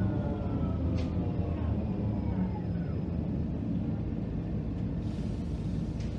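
City bus heard from a rear seat inside, running with a steady low rumble from its drivetrain and a whine that falls in pitch over the first two or three seconds as it slows. A sharp click comes about a second in and a soft hiss near the end.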